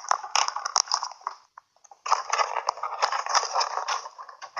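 A cardboard box being handled and cut open, its packing tape scraped and slit with a small blade: a busy run of knocks and scrapes with a short pause about a second and a half in.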